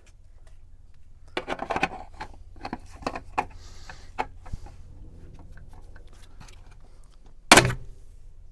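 Plastic golf-cart steering wheel parts being handled and pressed into place: a quick flurry of clicks and taps about a second and a half in, scattered clicks over the next few seconds, and one loud knock near the end.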